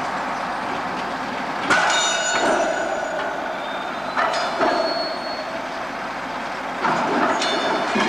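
Loose-shunted freight wagons rolling through a marshalling yard: a steady rumble of steel wheels on the rails. Three times it is broken by a sharp metallic clank with a high ringing squeal, about two seconds in, about four seconds in and near the end.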